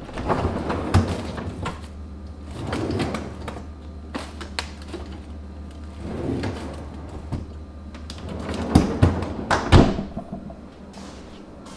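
A refrigerator's bottom freezer drawer is pulled open on its runners with a knock. Frozen-food packages rustle as items are moved about inside, and then the drawer is pushed shut with a few thumps near the end.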